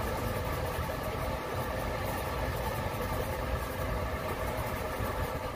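Steady low rumble with a faint hum of a train running by.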